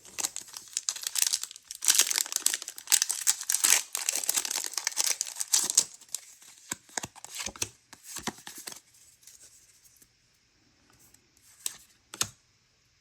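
Pokémon booster pack's foil wrapper being torn open and crinkled for about six seconds. Then come scattered light clicks and taps as the cards are handled, fading toward the end.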